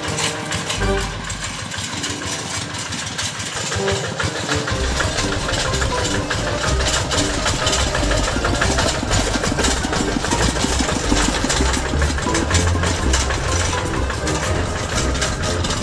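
Single-cylinder diesel engine of a Quick two-wheel hand tractor running, a fast, even chug. The deep low rumble grows louder about five seconds in.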